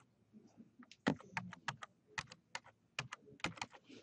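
Computer keyboard being typed on: an uneven run of key clicks, sparse at first and quickening about a second in.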